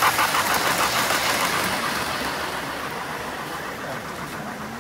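O-gauge model steam train running past on three-rail track, a fast rhythmic sound that is loudest at first and fades steadily as the train moves away.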